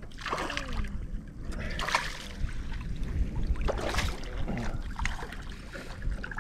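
Redfish thrashing at the surface as it is scooped into a landing net, with several water splashes, the clearest about two and four seconds in.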